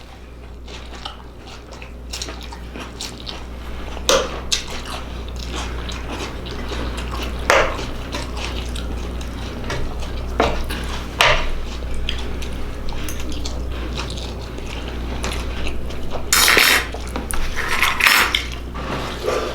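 Eating at a table: cutlery clicking against a plate several times and chewing, over a steady low hum, with a couple of longer scraping or crunching noises near the end.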